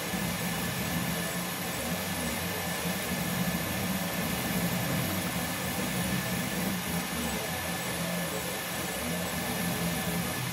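Up! Mini 3D printer printing: its stepper motors buzz in short, shifting moves as the print head lays down a part, over the steady hiss of its cooling fan.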